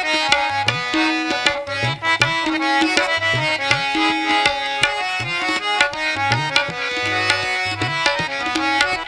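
Instrumental interlude of a live Bhojpuri song accompaniment: a tabla-style hand drum plays a steady rhythm, its low bass strokes bending upward in pitch, under a sustained melody line.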